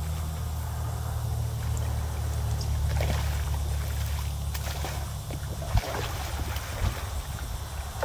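A steady low hum runs under a hooked black drum thrashing at the surface, with a few short splashes, the loudest about six seconds in.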